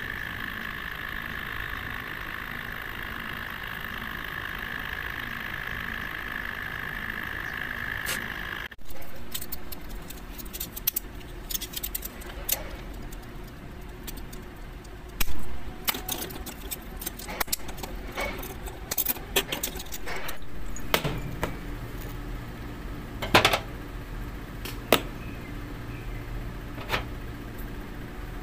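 A steady background hum, then after a sudden cut a run of sharp clicks and small knocks from the hard plastic parts of an SD Gundam model kit being handled and worked with the fingers.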